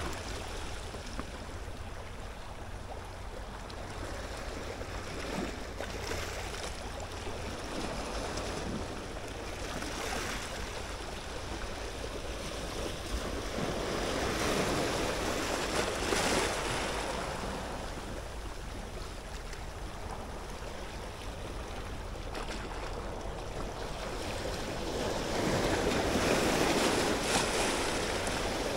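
Small waves washing onto the shore, the noise swelling and fading every few seconds, with some wind rumbling on the microphone.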